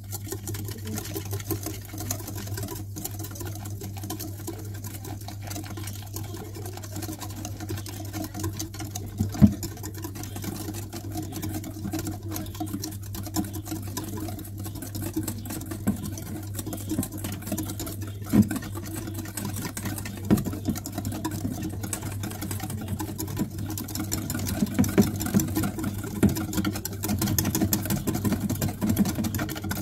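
Wire whisk beating pancake batter in a stainless steel bowl: a fast, steady clatter of wire against metal, busier and louder near the end, with a few sharper knocks against the bowl. A steady low hum runs underneath.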